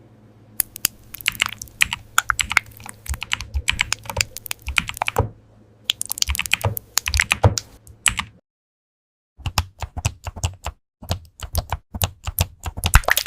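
Typing on a computer keyboard: fast, irregular key clicks in bursts that break off for about a second partway through, then start again. A faint low hum lies under the first part.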